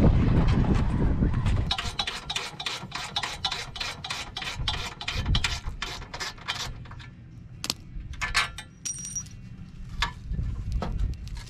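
Wind on the microphone at first, then a hand ratchet clicking rapidly, about five clicks a second, for several seconds as a bolt is loosened on the car's front end. A few lighter metal clinks follow, one with a brief ring.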